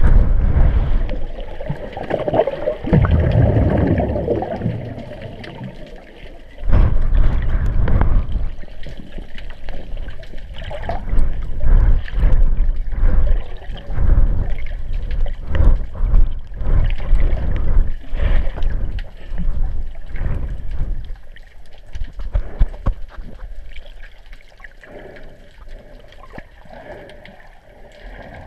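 Muffled underwater rushing and gurgling of water against an action camera's waterproof housing as it is moved through the water, in loud, uneven surges that die down over the last few seconds.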